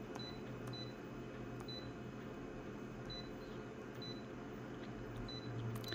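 Office copier touchscreen giving short, high key-press beeps, about six of them at irregular intervals as options are tapped, over a steady low hum.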